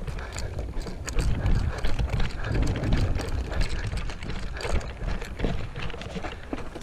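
Footsteps and rattling gear of a player on the move: irregular clicks and knocks over a low rumble of wind and handling on the microphone.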